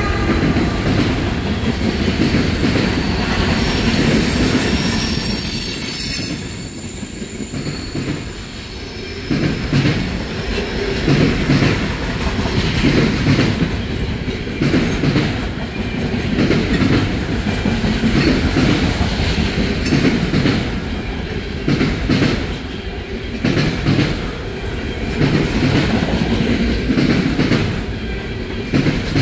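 Freight cars carrying trash containers rolling past at speed, their wheels clacking in repeating surges over the rail joints. A high wheel squeal rings over the rumble during the first few seconds.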